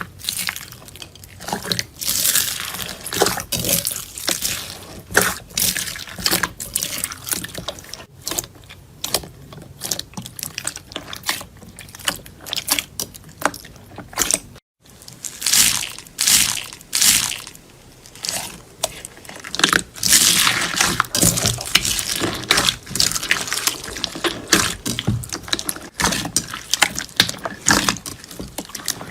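Slime being squeezed, poked and stretched by hands, making dense, irregular wet clicks, pops and crackles. There is a short break about halfway where one clip cuts to the next.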